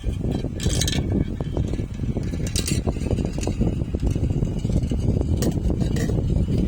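Marbles rolling along a marble run track: a continuous rattling rumble, broken by brief higher clinks of marbles striking each other or the track, the clearest a little under a second in and again around two and a half seconds.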